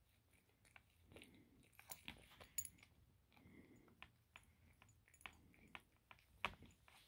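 A Maine Coon cat chewing and licking a piece of breaded fried chicken: faint, irregular crunching, smacking and wet clicks.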